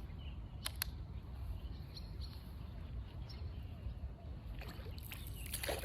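Low steady rumble of wind buffeting the microphone on open water, with two faint sharp clicks a little under a second in and a brief hiss near the end.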